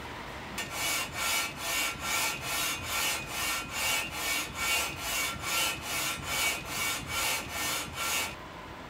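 An aluminum cylinder head being pushed back and forth by hand over 80-grit sandpaper on a flat table saw top: a rhythmic rasping scrape at about two and a half strokes a second, stopping shortly before the end. The head's slightly warped deck is being sanded flat.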